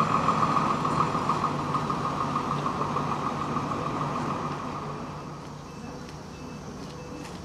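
Truck engine idling steadily, with a fast-pulsing drone, growing quieter about five seconds in.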